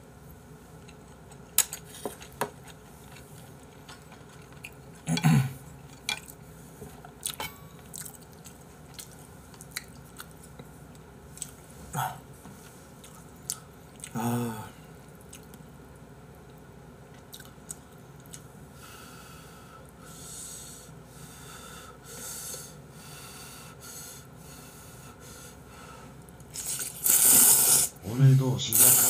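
A person chewing, with scattered short clicks of a spoon and chopsticks against bowls. Near the end comes a loud noisy stretch of ramen noodles being slurped.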